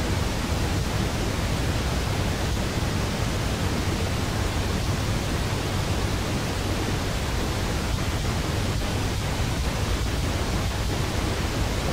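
A steady, even hiss of noise, with no distinct sounds standing out of it.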